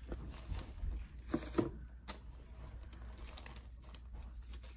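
Faint rustling and crinkling of packaging being handled, with a few light clicks and taps.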